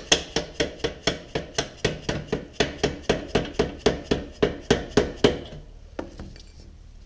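Hammer tapping steadily on a 1974 BMW R90S's long engine-mounting through-bolt to drive it out of the frame, about four blows a second, stopping about five seconds in.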